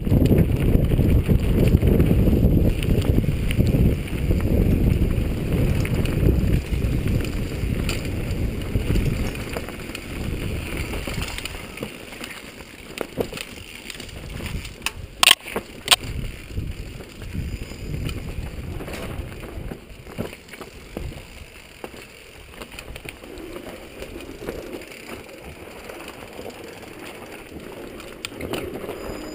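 Mountain bike ridden fast downhill over rough trail: tyres rolling and the bike rattling, with heavy wind rumble on the microphone for the first ten seconds or so, then quieter. Two sharp knocks come under a second apart about halfway through.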